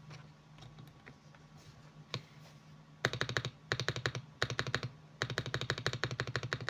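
Mechanical keyboard with lubed Akko switches being typed on: a few light, scattered key presses, then fast, rapid typing from about three seconds in, a short pause, and fast typing again.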